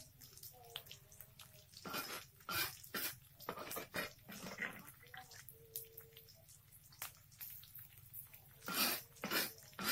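Spatula scraping and knocking against a wok while onion and chicken are stir-fried: a run of short scrapes and taps, with the loudest pair near the end.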